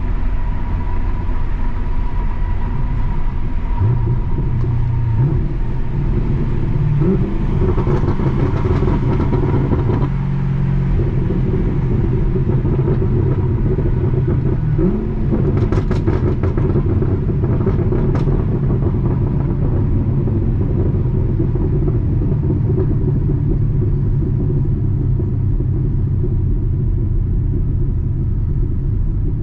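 Chevrolet Camaro V8 exhaust burbling at idle. The engine is revved up in steps a few seconds in and settles back down, and a few sharp crackles come just past the middle.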